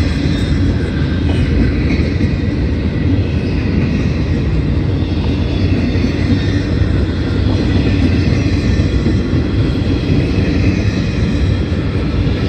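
CSX intermodal train's double-stack container well cars rolling past: steel wheels on the rails make a steady, loud noise.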